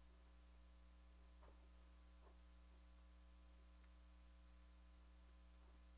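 Near silence: a faint, steady electrical hum, with two faint clicks about one and a half and two seconds in.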